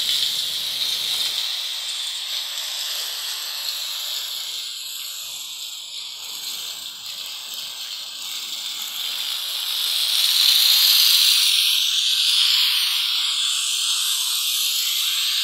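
Handheld steam cleaner hissing steadily as it jets steam over raw reclaimed wood to sanitize it, growing louder about ten seconds in.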